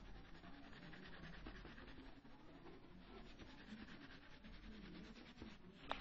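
A black crayon rubbed quickly back and forth on paper, shading, in fast even strokes. A sharper tap comes near the end.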